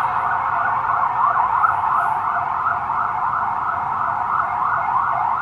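Emergency vehicle siren sounding steadily in fast, repeated rising sweeps, loud enough to drown out talk.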